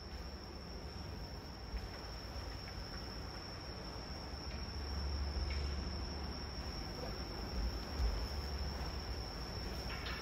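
A steady, high-pitched single-note whine over a low room rumble, with a few soft thuds.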